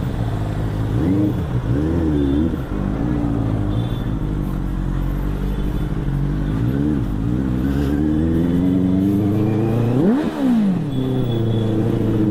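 Benelli 600i's 600 cc inline-four engine running at low road speed, with a couple of short throttle blips about a second or two in and again near seven seconds, and one quick rev that climbs and drops about ten seconds in.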